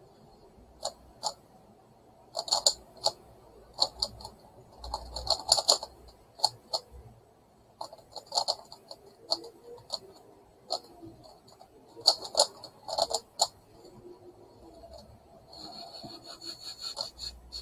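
Megaminx puzzle being turned fast by hand: bursts of plastic clicking and rattling as its faces are twisted, with short pauses between bursts, and a longer run of rapid clicking near the end.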